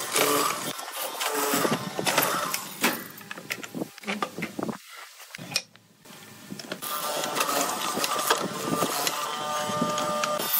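Hollow-chisel mortiser cutting square mortises in a wooden board: the motor runs while the chisel plunges into the wood in repeated strokes. The sound drops out briefly about halfway, then the machine runs again with a steady hum under the cutting.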